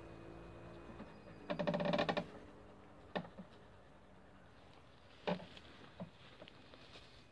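An Ouessant sheep gives one short, wavering bleat about a second and a half in. A few sharp knocks follow.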